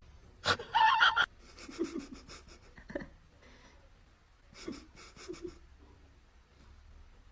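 A pet breathing or panting in short bursts, with a brief louder sound about half a second in.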